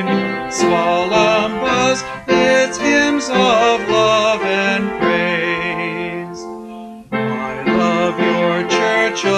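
A hymn sung with instrumental accompaniment, the voice held with vibrato. Near the middle, the verse ends on a long note that fades away, and after a brief break the next verse begins.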